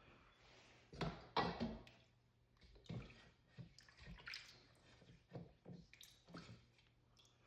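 Water splashing and dripping as a waterstone is wetted, with a few irregular knocks of the stone being handled and set down, the loudest about a second in.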